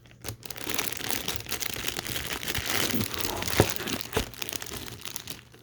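Crinkling packaging being handled and pulled open, a dense rustling crackle with two sharp clicks in the second half.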